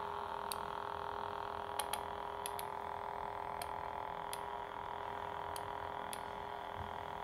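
Lightsaber replica's CFX soundboard playing a steady idle hum of a few held tones through the hilt speaker while the blade cycles colours. Light, sharp clicks come about nine times at uneven intervals.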